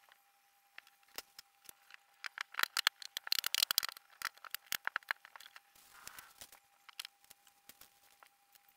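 Flat-pack particleboard furniture being handled and assembled: a quick series of light clicks and knocks, densest about three to four seconds in, with a faint steady thin tone underneath.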